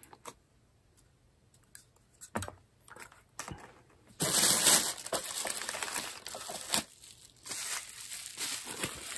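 A few light clicks and taps of small parts set down. About four seconds in, loud crinkling of plastic packaging and bubble wrap begins and runs on, uneven, as a packed part is handled.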